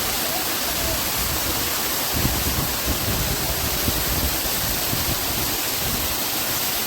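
Waterfall rushing in a steady, even roar of falling water, with low rumbling surges from about two seconds in.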